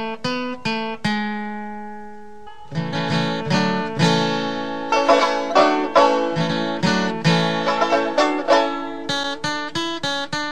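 Background music played on plucked strings: quick picked notes, a held note about a second in, then busier, louder picking from about two and a half seconds on.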